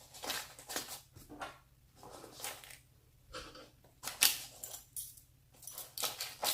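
Small electronic accessories being packed back into a fabric organizer bag: irregular rustles, light clicks and clinks as the items are handled and set in, about a dozen in a few seconds.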